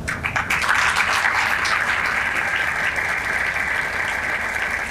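A crowd applauding, breaking out suddenly and keeping up a steady clapping.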